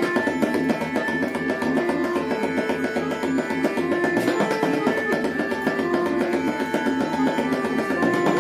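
Tabla solo: a dense run of rapid strokes over a lehra, a looping melody in held notes.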